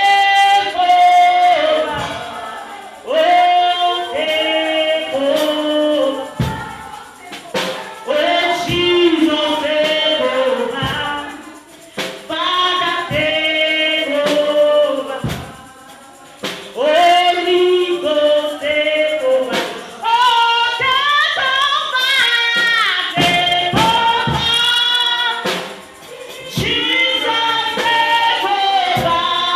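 Voices singing a gospel song in phrases of a few seconds with short breaks between them, with scattered sharp percussive hits.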